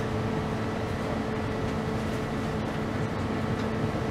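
Inside a moving couchette car of a night train: the steady rumble of the train running along the track, with a steady low hum underneath.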